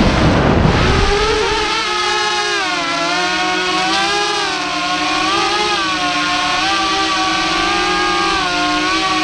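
Small FPV quadcopter's electric motors and propellers whining: a buzzing tone with many overtones that wavers up and down in pitch as the throttle changes. A rush of wind noise covers the first second or so as it swoops down.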